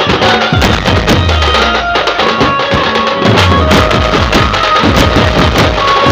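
Dhumal band music: dense, fast drumming with deep booming bass-drum notes and a sustained melodic line above it.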